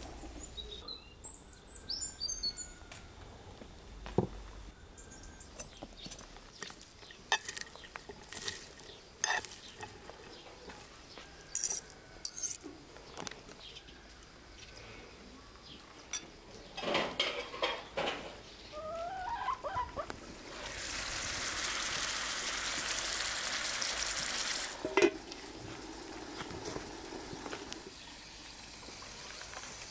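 Metal spoons clinking and scraping in a glass bowl as a salad is tossed, with a bird chirping briefly near the start. A steady hiss begins about twenty seconds in and lasts about four seconds, and ends in a single sharp knock.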